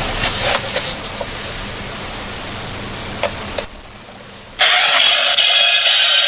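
Electronic sound effects from a Transformers remote-control robot car toy, a recorded car engine played through the toy's small speaker. The sound drops away about 3.5 s in, and a louder, thinner engine effect starts abruptly near the end.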